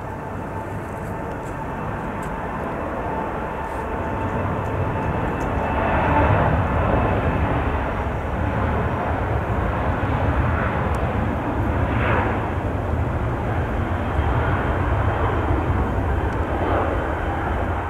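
CFM56 jet engines of a Boeing 737-700 running at high power as the airliner rolls along the runway: a broad, steady rumble with a thin fan whine, growing louder about four to six seconds in and staying loud.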